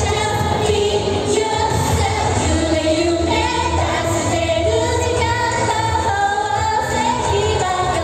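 Pop song with female voices singing over a steady beat, amplified through the hall's sound system.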